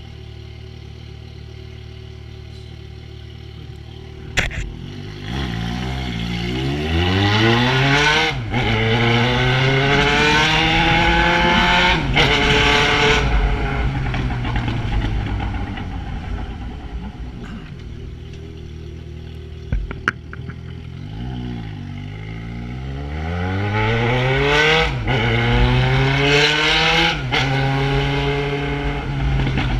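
Yamaha XJ6 inline-four motorcycle engine through an aftermarket Atalla 4-into-1 exhaust, running steadily at first, then a sharp click and two long revs. Each time the pitch climbs, holds high with brief dips, and slowly falls back.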